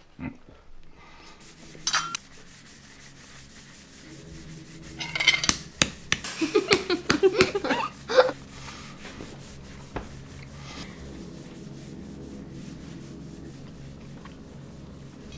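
Table cutlery scraping over toast and china plates. A run of quick scraping strokes comes about five to eight seconds in, with a few clinks before and after.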